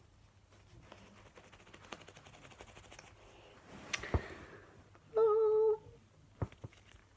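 Faint, fine sticky clicks of slime being handled, then a short hummed note lasting about half a second, the loudest sound, with a couple of sharp taps around it.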